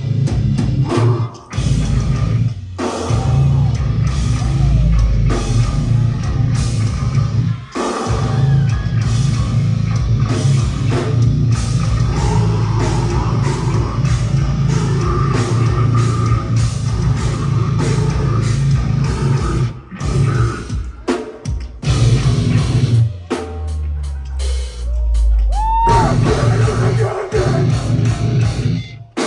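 Heavy rock music with drum kit and guitar, with a few brief breaks.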